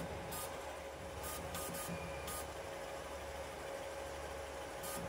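FLSun Super Racer delta 3D printer running a print: a steady hum from its fans and motors with a constant whining tone, broken by several short high-pitched hisses as the print head moves.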